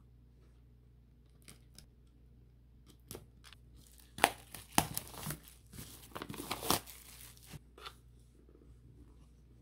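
Packaging being torn open and crinkled: a few light rustles, then about four seconds in a burst of loud tearing and crinkling lasting about three seconds, trailing off into softer rustles.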